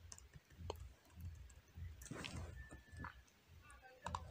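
Computer keyboard keys clicking faintly in a few scattered presses, over a low hum.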